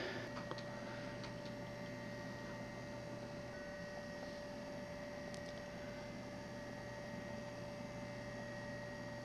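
Faint steady electrical hum over quiet room tone, with a few faint light ticks as a small washer is handled and pressed onto a dowel.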